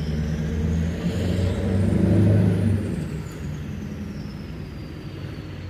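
Heavy diesel vehicle driving past, its engine loudest a little after two seconds in and then fading away. A thin high whine rises and then falls in pitch as it passes.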